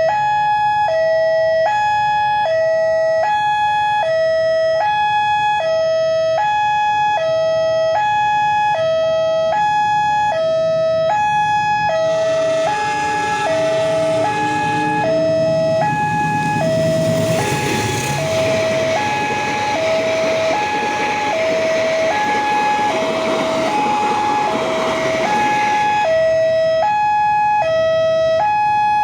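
Railway level-crossing warning siren sounding a steady, loud two-tone alarm that alternates between a lower and a higher pitch, the old siren of this crossing. From about twelve seconds in until near the end, a broad rushing noise joins it, as of a train passing over the crossing.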